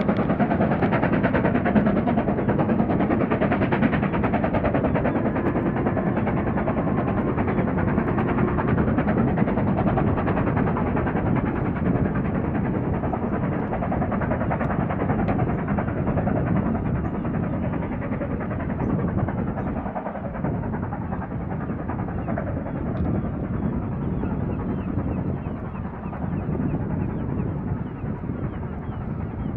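Steam locomotive hauling a train, its exhaust beats running together into rapid chuffing, slowly fading as it moves away.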